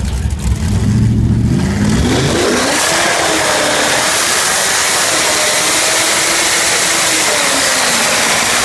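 Camaro ZL1's supercharged 6.2-litre V8 running low, then revving up about two seconds in and held at high revs as the rear drag radials spin in a burnout, with a loud hiss of tyre squeal over the engine.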